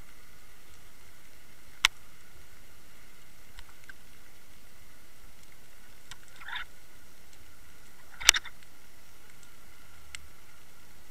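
Underwater sound heard through the sealed housing of a Water Wolf fishing camera: a steady hiss with a faint high whine, broken by a sharp click about two seconds in, a short rasp near six and a half seconds, and the loudest click with a quick rattle about eight seconds in.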